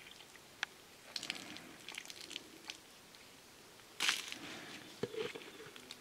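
Thin plastic jug and plastic bottle being handled, with scattered crackles and clicks and a louder rustling burst about four seconds in.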